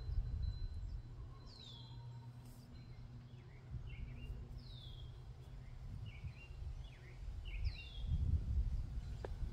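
Bird calls: a falling whistle repeated three times about three seconds apart, with short chirps between. Underneath is a low rumble that grows louder near the end.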